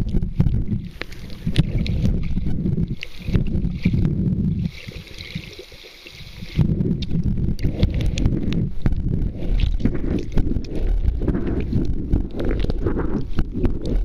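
Muffled, rumbling water noise on the microphone with scattered clicks. About five seconds in, it drops for a couple of seconds to a quieter hiss.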